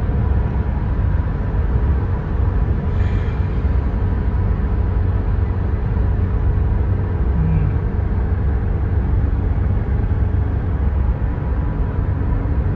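Road and engine noise inside a car cabin at highway speed: a steady low rumble.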